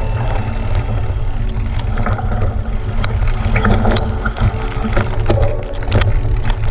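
Mountain bike riding over a rocky dirt singletrack: a constant low wind rumble on the microphone, with frequent sharp clicks and knocks as the tyres hit stones and the bike rattles.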